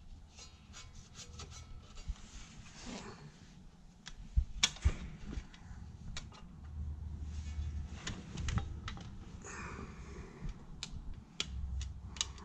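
Hands fitting a Keeton seed firmer and its plastic liquid tube onto a John Deere planter row unit: scattered sharp clicks and taps of plastic and metal over rustling handling noise. The loudest clicks come about four and a half seconds in and again near the end.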